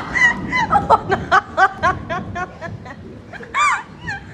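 A person laughing hard in a quick run of high-pitched, hiccuping bursts, several a second. The laugh fades in the middle, then one louder burst comes about three and a half seconds in.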